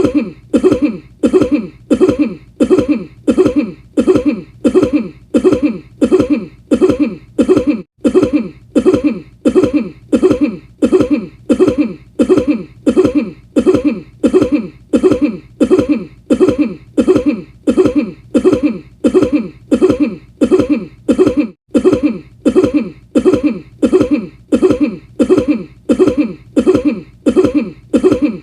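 The same short cough, looped over and over in identical repeats at about two a second. It cuts out for an instant about 8 seconds in and again about 21 seconds in.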